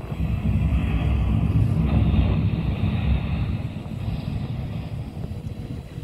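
Wind buffeting a phone microphone, an uneven low rumble that is strongest in the first half, over a fainter steady hiss of the fountain's water spray.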